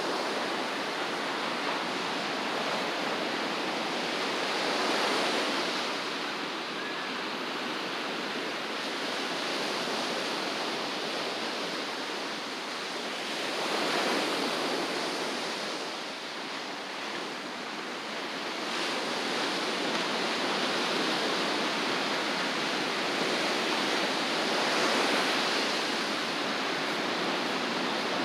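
Pacific Ocean surf: a steady wash of breaking waves, swelling louder roughly every ten seconds as a set of waves breaks.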